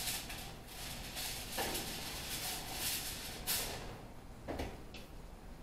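A foil-covered baking pan slid onto a metal oven rack: rustling with a few light knocks and scrapes, about one and a half, three and a half and four and a half seconds in.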